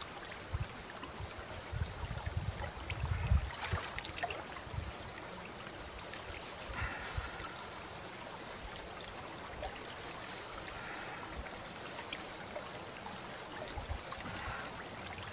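A small forest brook babbling steadily over stones, with a few soft knocks and rustles now and then.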